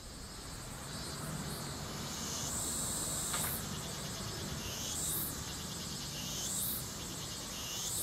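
Cicadas calling in a steady high buzz, with a rising sweep in the song about every second and a half.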